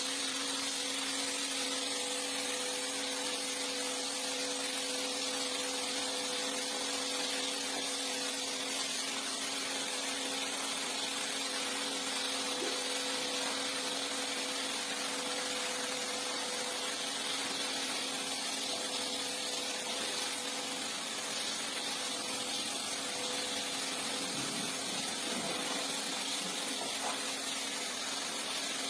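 Rug-cleaning machine running steadily, a constant hiss over a low two-tone motor hum.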